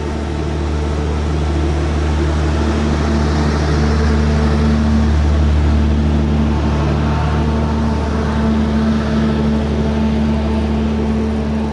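Wind rumbling on the microphone of a bicycle-mounted camera while riding across a steel bridge deck, with a steady mechanical hum underneath.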